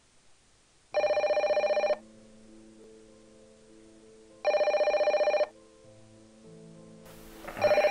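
Landline telephone ringing with a fast trilling warble: two full rings of about a second each, three and a half seconds apart, and a third starting near the end. Soft music plays quietly between the rings.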